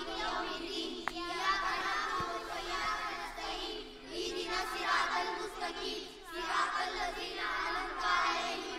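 Many voices chanting a Quran recitation together in a sung, melodic style.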